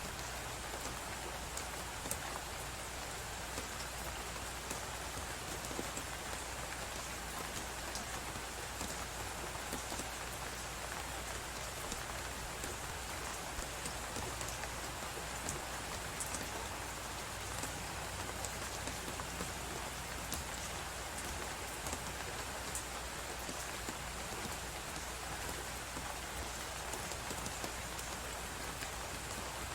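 Steady hiss of blizzard wind with frequent small crackles and pops from a wood fire in a fireplace.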